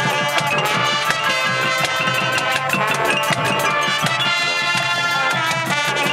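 High school marching band playing, with brass and sousaphones holding notes over a fast, busy drum beat from the percussion.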